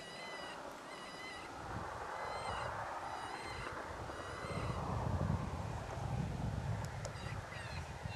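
Short, high-pitched animal cries repeating, some gliding downward near the end, with a low wind rumble swelling around the middle.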